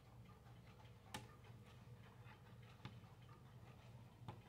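Faint ticking of an IKEA TUNNIS wall clock, with three sharper clicks about one and a half seconds apart.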